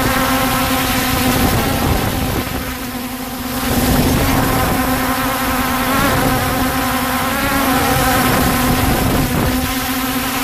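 Holy Stone HS700 quadcopter's motors and propellers buzzing steadily in flight, heard close up from a camera mounted on the drone. The whine dips quieter about two to three seconds in, and its pitch wobbles briefly past the middle.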